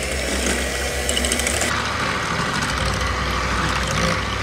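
Electric hand mixer running steadily, its beaters whisking eggs into oil in a glass bowl.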